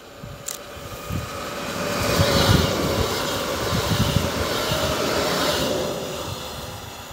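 An EN78A electric multiple unit passing at speed. The rush of wheels on rail and moving air swells to a peak as it goes by, then fades away.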